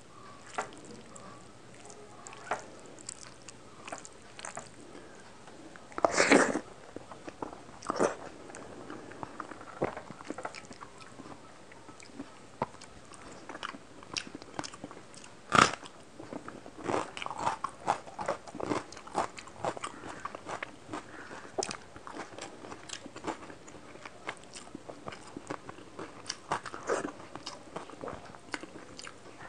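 Close-miked eating with the hands: fingers squishing and mixing rice with fish curry on a plate, with biting, crunching and chewing. Short wet clicks run throughout, with a few louder sharp ones about 6, 8 and 15 seconds in.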